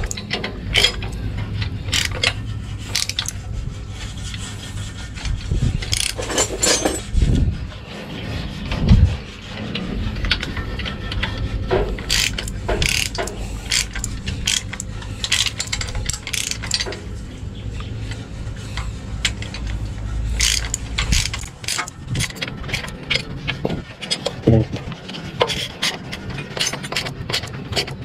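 Ratchet wrench clicking and metal tools knocking during engine overhaul work, over a steady low hum that stops about three-quarters of the way through.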